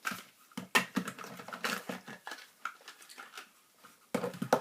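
Irregular plastic clicks, knocks and rattles of hands working a battery pack against an RC car's plastic chassis, the pack being tried in a battery bay it is too big to fit.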